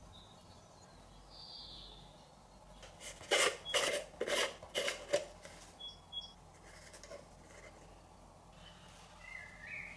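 Hands handling a clear plastic jar with a red plastic screw lid: a quick run of about six scraping, rubbing strokes over about two seconds, then a few fainter ones.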